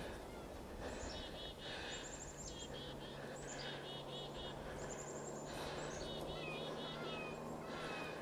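High-pitched bird-like chirping calls, each a quick series of four or five evenly spaced notes, repeated every second or so, with a few short rising whistles near the end. A faint steady low hum sits underneath.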